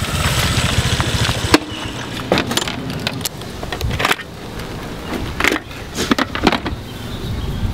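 Motor scooter engine running, loud for the first second or so and then settling to a steady idle. A few sharp clicks and knocks sound over it.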